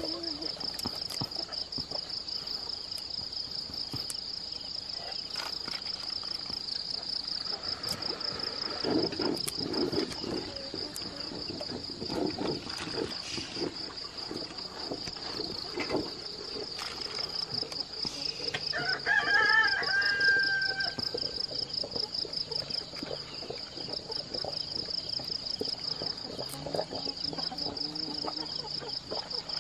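Insects chirring steadily in a fast, high pulsing trill, with scattered rustling and knocks from handling. About two-thirds of the way through, a rooster crows once.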